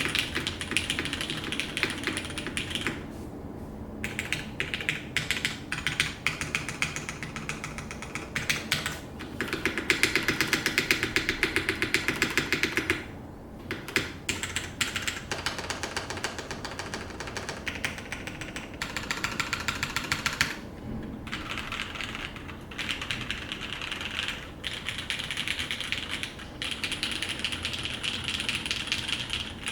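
Fast typing on a DN SVJ custom mechanical keyboard with an aluminum plate, lubed New Nixie switches, GMK keycaps and TX stabilizers: a dense, continuous stream of keystroke clacks. It breaks off in a few short pauses, and a louder, busier run of typing comes about a third of the way in.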